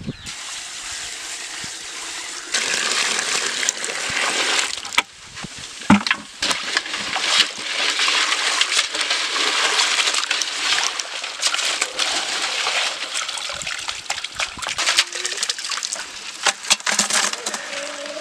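Water pouring from a bucket into a basin of live crabs, then splashing and sloshing as the crabs are rubbed clean by hand in the water, with many short sharp clicks and knocks throughout.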